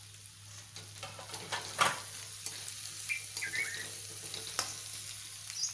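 Onions and spices sizzling in oil in a kadhai while a spatula stirs and scrapes against the pan, the sharpest scrape about two seconds in.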